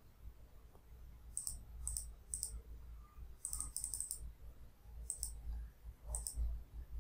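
Computer mouse button clicking, about ten light, sharp clicks. Four come in quick succession near the middle as checkboxes are ticked one after another.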